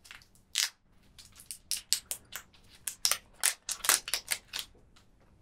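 Buldak hot sauce squeezed from a squeeze bottle onto chicken, spluttering out in a quick run of short, irregular crackly squirts.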